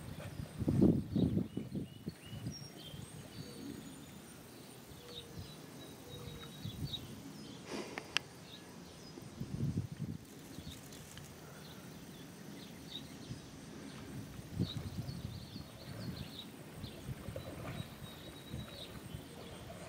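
Outdoor lakeside ambience: scattered short, high bird chirps over low, uneven rumbling bursts, the loudest about a second in and more around the middle and latter part.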